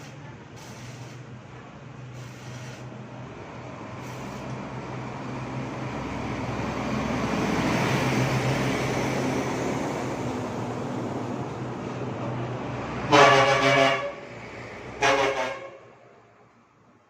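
A vehicle passing, rising and then fading, followed by a horn honking twice, about two seconds apart.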